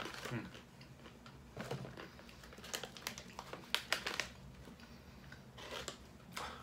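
Plastic snack bag of mixed nuts crinkling in the hands, with irregular crackles, mixed with the crunch of nuts being chewed.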